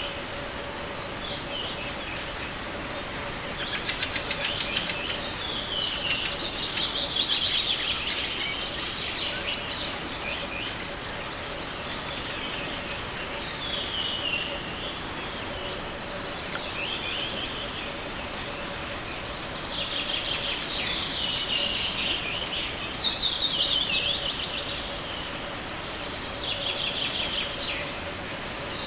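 Wild songbirds singing in spring, short falling phrases repeated every few seconds, sometimes overlapping, over a steady rushing background of the forest stream.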